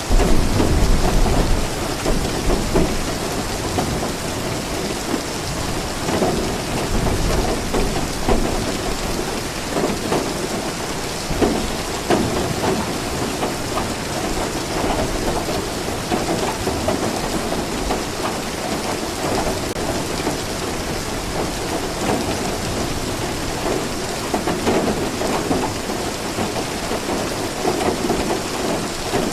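Steady rain falling, an even hiss of drops throughout, with a low rumble of thunder in the first couple of seconds.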